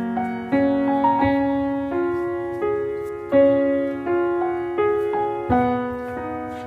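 Slow solo piano background music, a new note or chord struck roughly every two-thirds of a second and each fading away.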